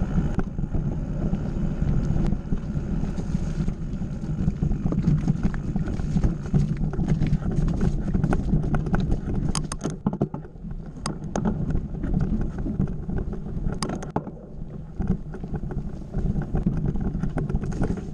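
Mountain bike rolling along a dirt singletrack: a steady rumble of tyres over the trail and wind on the microphone, with a few sharp clicks and rattles from the bike over bumps past the middle.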